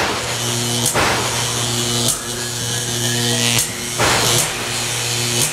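Electric buzz and crackle sound effect: a steady low electrical hum with hiss, broken by several sharp zaps like arcing electricity.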